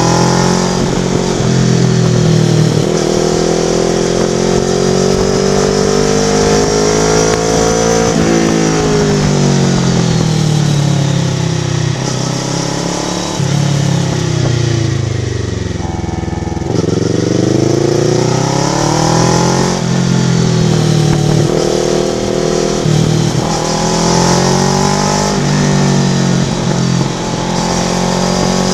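Kawasaki Vulcan S 649 cc parallel-twin engine through an Ixil aftermarket exhaust, its pitch climbing and dropping again and again as the bike is ridden through the gears. About halfway through the engine note falls away to a low, then climbs again in steps.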